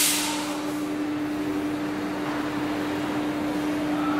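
Steady machine hum: one constant tone with a few fainter steady tones under it, over an even hiss.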